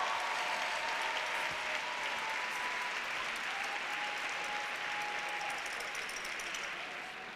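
Crowd applauding steadily, easing off near the end.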